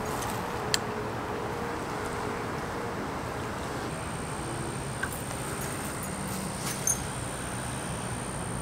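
Steady wind noise on the microphone, with a few light clicks from handling a spinning reel while retrieving a lure.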